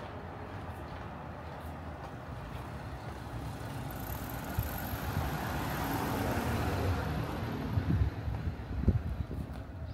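A motor vehicle passes close by: its engine and tyre noise swell to a peak about six or seven seconds in, then ease off. A few low thumps come near the end.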